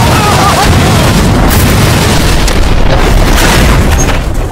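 Dozens of pounds of TNT exploding: a loud blast that rumbles on for several seconds.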